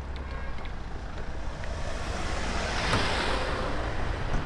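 Outdoor street noise with a low rumble and a vehicle passing by: a broad whooshing swell that rises to a peak about three seconds in and then fades.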